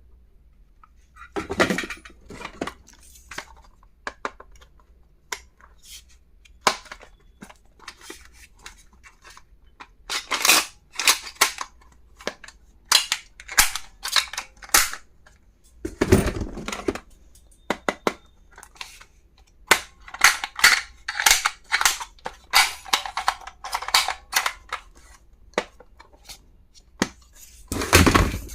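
Stationery items being handled and unboxed: a long irregular series of sharp clicks, snaps and taps, in clusters with short pauses, the heaviest knocks about halfway through and near the end.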